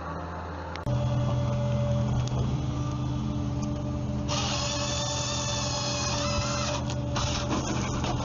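Wood-processing machinery running with a steady mechanical hum. About a second in it cuts abruptly to louder machine noise, and a higher whirring hiss joins from about four seconds in to about seven.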